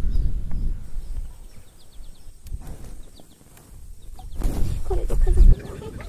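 Wind buffeting the microphone in gusts, strongest at the start and again near the end, with faint short high bird chirps in the middle and a few brief wavering calls at the end.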